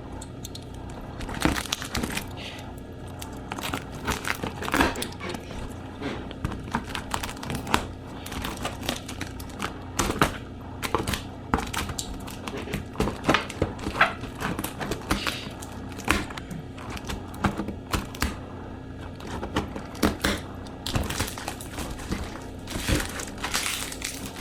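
Packing tape on a cardboard box being cut and picked at with a knife: irregular scrapes, crinkles and small knocks.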